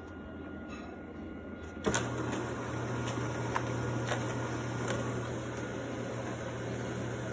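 A steady mechanical hum, like a small appliance motor, switches on suddenly about two seconds in and keeps running, with a few faint clicks over it.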